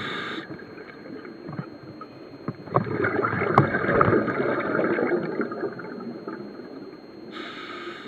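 Scuba breathing heard underwater through a regulator: a short hissing inhale at the start and again near the end, with a longer crackling rush of exhaled bubbles in between.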